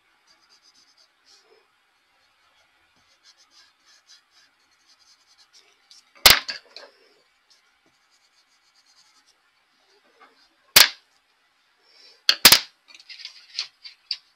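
Faint scratching of a colored pencil on paper, broken by three sharp knocks in the second half as pencils are set down and picked up on a hard desk.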